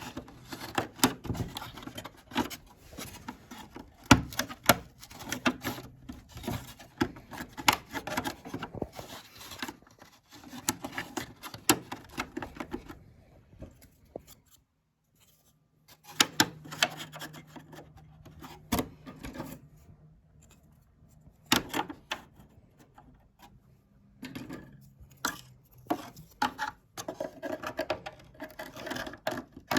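Hand-tool work on a small repair: irregular clicks, taps and scraping as tools and parts are handled, broken by a couple of seconds of near silence about halfway through.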